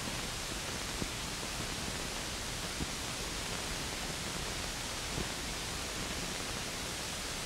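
Steady hiss of an old film soundtrack, with a few faint clicks.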